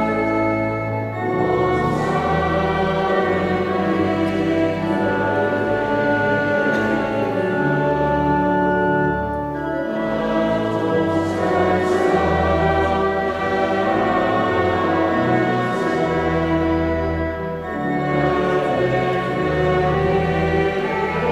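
Church pipe organ playing with singing, in long held phrases separated by short breaks every eight seconds or so.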